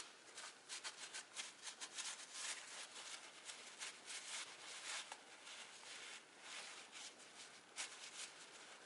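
Faint, irregular rubbing and brushing of a rag wiping down the bare steel wheel hub face and lug studs.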